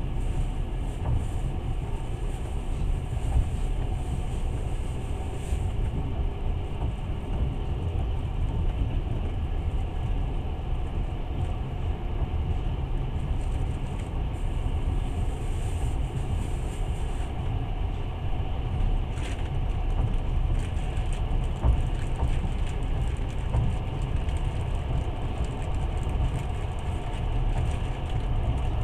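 Passenger train running along the track: a steady low rumble of wheels and carriage, heard from inside the carriage.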